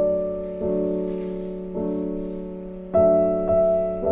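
Background music: slow piano chords over a held low note, a new chord struck about once a second and left to fade, the loudest about three seconds in.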